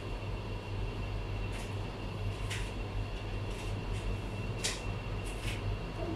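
Mi Robot Vacuum-Mop Essential robot vacuum running: a steady low motor hum with a thin high whine over it, and several short clicks and ticks along the way.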